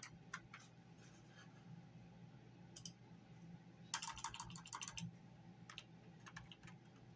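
Faint typing on a computer keyboard: scattered keystrokes and a quick run of clicks about four seconds in, over a low steady hum.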